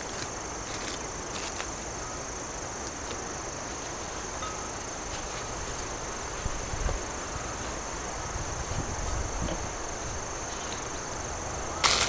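Steady high-pitched insect chirring, cricket-like, over outdoor background noise, with light handling sounds as paper is unwrapped from bread and a sharp click near the end.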